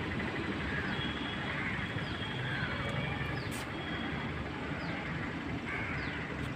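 Outdoor ambience: a steady low rumble with short, high, falling chirps about once a second.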